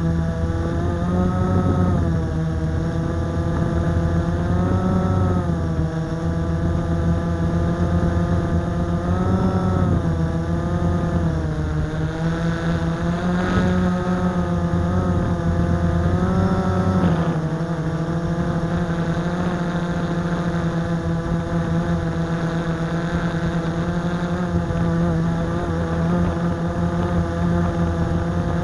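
Blade 350 QX quadcopter's brushless motors and propellers whining, heard from a camera mounted on the airframe. The pitch rises and falls with throttle corrections, then holds steadier from a little past halfway.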